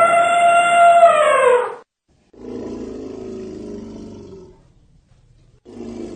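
Elephant calling: one loud, high, brassy trumpet call that falls in pitch as it ends, followed by two lower, quieter calls, the second starting near the end.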